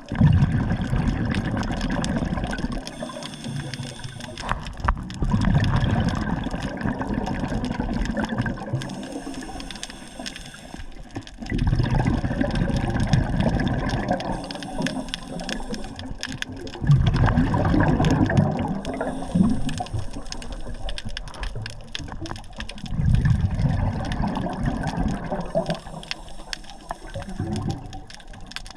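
Water surging and washing, swelling and easing in waves every few seconds.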